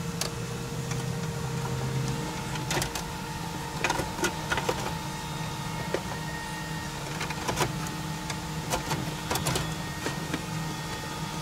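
Scattered clicks and light knocks of an aftermarket car stereo's metal chassis and wiring being pushed and slid into the dash opening, over a steady low hum.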